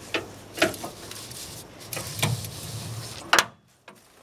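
Ratchet strap being released: its metal ratchet and buckle clack a few times as the webbing is pulled free, the loudest sharp clack about three seconds in.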